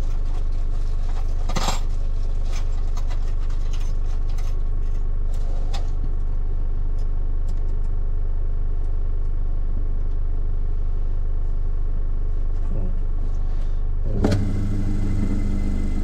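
Metal key blanks clinking and the clamp of a Cyclone key-cutting machine being worked, a few sharp clicks in the first seconds, over a low steady hum. About 14 s in, a click and then the machine's motor starting up with a steady, higher hum.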